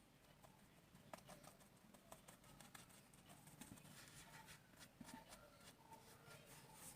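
Near silence with faint, scattered small clicks and taps.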